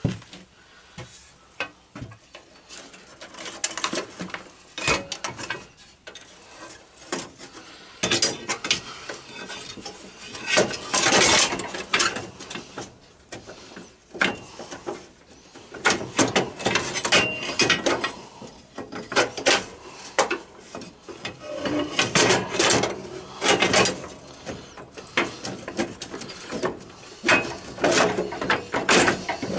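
Metal parts clanking, knocking and scraping as steering parts are worked by hand into a garden tractor's frame, in irregular clusters that grow louder and busier from about a third of the way in.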